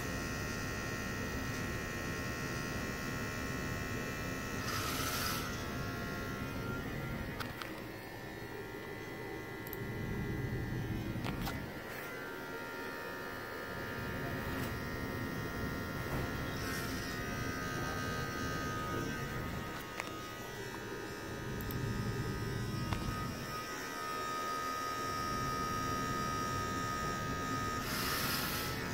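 Small electric motor spinning a propeller in air: a steady buzzing whine whose pitch shifts to a new speed every five or six seconds as it is driven by wireless control.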